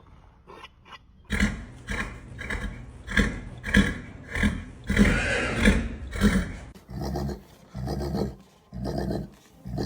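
A horse making a strange, repeated roar-like grunting sound, about one and a half grunts a second, starting about a second in; after about seven seconds the grunts turn lower and breathier.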